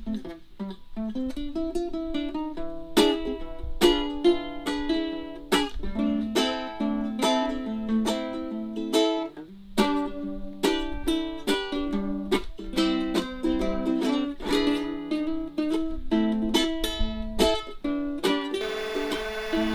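Ukulele music: strummed chords and plucked notes in a steady rhythm. Near the end the sound changes to a denser, hissier recording.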